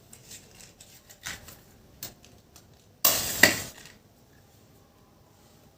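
Handling sounds: a few light clicks and taps, then about three seconds in a short, loud scraping burst lasting under a second.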